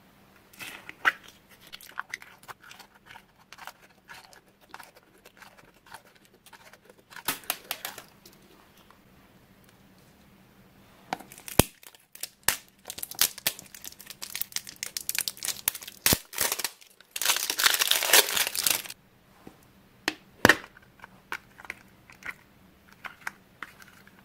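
Small plastic toy slime containers being handled and unwrapped: scattered crinkles and clicks, a few sharp plastic snaps as a lid is popped, and a louder stretch of crinkling and tearing about three-quarters of the way through.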